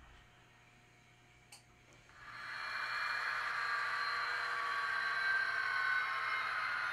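Model diesel locomotive's onboard sound system playing a diesel engine sound through its small speaker, coming in about two seconds in and then running steadily as the locomotive starts to move. A single click just before it.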